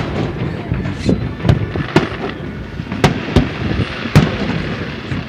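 Fireworks bursting at a distance: a string of sharp booms at irregular intervals, one every half second to second, over a constant crackle.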